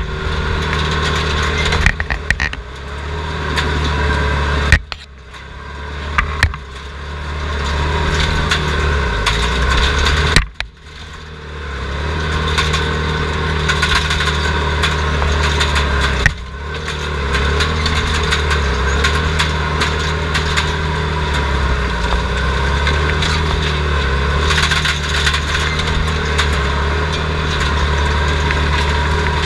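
Skid steer loader's engine running steadily under work, heard from inside the cab. Its level drops sharply twice, about five and ten seconds in, then builds back up.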